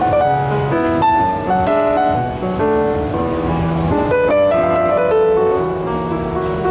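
Yamaha grand piano played by hand: a flowing melody over chords, several notes sounding at once and changing every fraction of a second.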